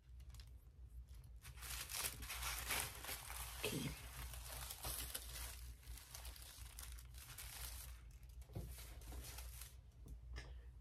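Sheets of thin printing paper rustling and crinkling as gelli prints are handled and lifted over a gel printing plate, in irregular rustles over a low steady hum.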